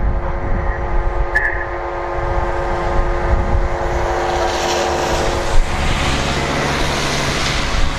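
A steady droning hum made of several held pitches, its source unknown, cuts out about four and a half seconds in, while a broad rushing noise swells and stays. There is one sharp click a little past halfway.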